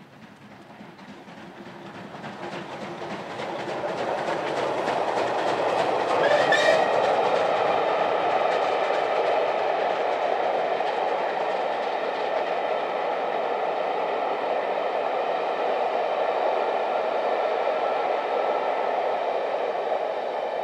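Steam locomotive 35028 Clan Line passing with its train of Pullman coaches. It grows steadily louder over the first six seconds, then gives a steady, loud run of wheels on rails as the coaches go by.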